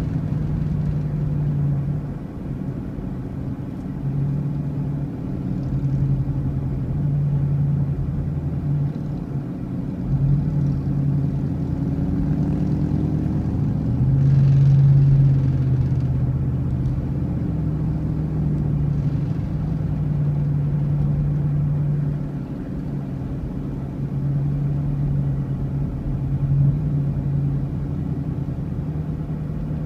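Motor vehicle engine droning steadily on the road, a low hum that swells and eases as the throttle changes, loudest about halfway through.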